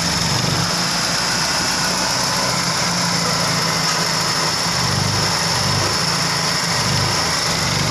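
Honda Grand Civic's carbureted four-cylinder engine idling steadily just after it has finally started, its low running note swelling slightly a few times in the second half, with a steady high-pitched whine over it. The carburetor's broken mounting ear is held with a homemade clamp, the repair for hard starting when hot.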